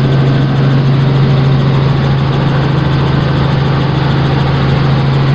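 Helicopter in flight heard from inside the cabin: a loud, steady drone with a strong low hum over a rushing noise.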